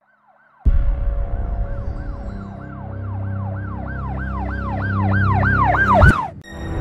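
Trailer sound effect of a siren wailing in quick rising-and-falling sweeps over a low rumbling drone, starting after a brief silence, speeding up and getting louder, then ending in a sharp rising whoosh that cuts off suddenly near the end.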